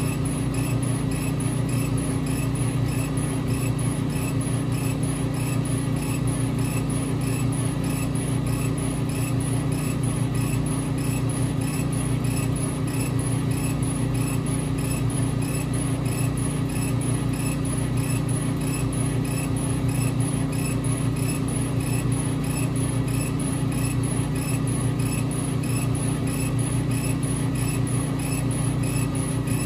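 Epilog Fusion M2 40 laser cutter raster-engraving wood: a steady low machine hum from its motors and fans, with a faint, evenly repeating pulse as the engraving head sweeps back and forth.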